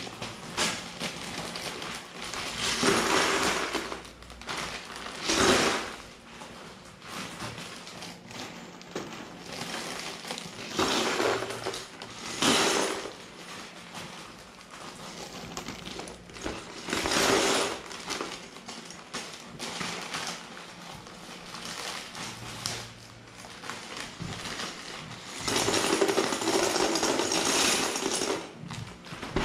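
Small plastic building bricks poured from their packs and clattering into a plastic container, in bursts of about a second every few seconds, the longest near the end.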